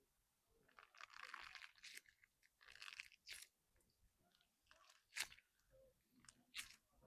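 Faint crunching and crackling as a hairspray-coated stress ball is squeezed and its dried hairspray coating cracks: two short runs of crackle in the first half, then two single sharp cracks.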